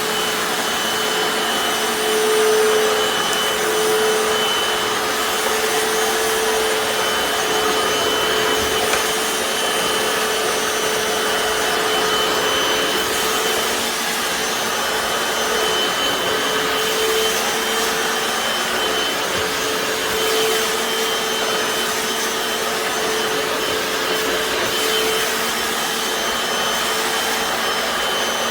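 Hoover FloorMate Deluxe hard-floor cleaner running in wash mode, its motor giving a steady hum with a thin high whine as its spin scrub brushes work over tile.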